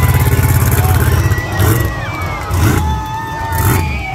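Monster truck engine running hard, then easing off and blipping the throttle in three short bursts about a second apart as the truck maneuvers in the dirt.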